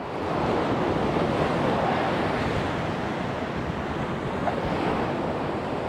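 Rough sea surf breaking and washing on a shingle beach, a dense steady rush that swells up in the first half second, with wind buffeting the microphone.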